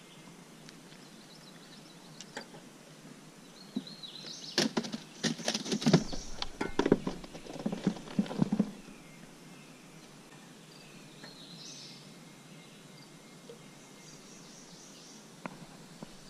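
Clattering knocks and a few dull thumps for about four seconds, starting about four seconds in: the sound of handling in an aluminum jon boat as a just-caught rock bass is put away to be kept. Around it is a steady outdoor background.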